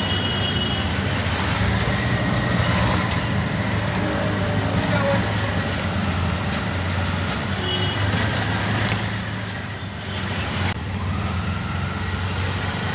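Auto-rickshaw engine running steadily while driving, a low drone with road and traffic noise around it.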